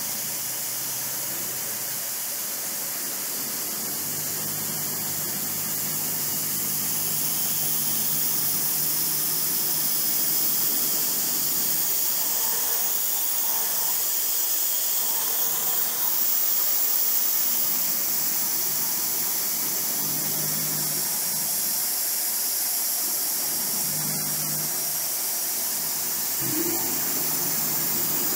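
Steady air hiss from the air compressor and the air-purge system on the spindle of a MultiCam 3000 series CNC router, with a low hum from the servo-driven gantry that comes and goes as it is jogged around the table. The machine itself is barely heard over the air.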